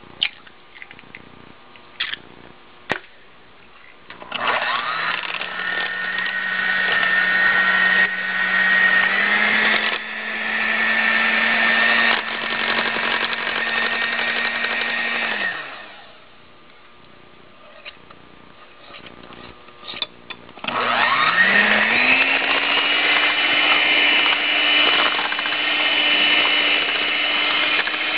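Electric hand mixer beating cheesecake batter in a glass bowl. A few clicks, then the motor starts with a rising whine, steps up in speed partway through, and stops; after a pause with more clicks it starts again and runs steadily.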